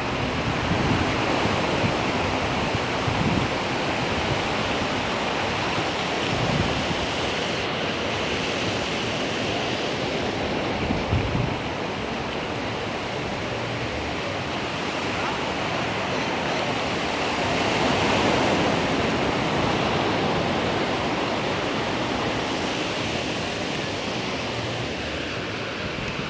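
Ocean surf breaking and washing up a beach: a steady rush that swells a little about two-thirds of the way through.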